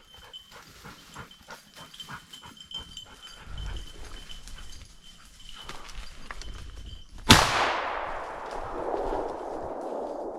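Twigs and leaves crackling underfoot while walking through brush. About seven seconds in comes a single 16-gauge shotgun shot fired at a flushed grouse, its echo dying away over the next two to three seconds.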